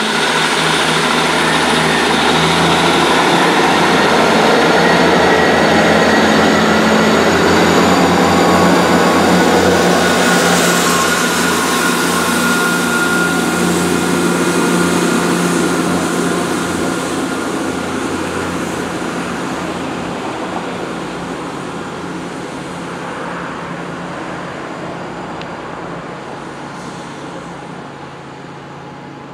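Class 158 diesel multiple unit's underfloor diesel engines working as it pulls away from the platform: a throbbing engine note with a faint high whine above it, fading steadily through the second half as the train draws away.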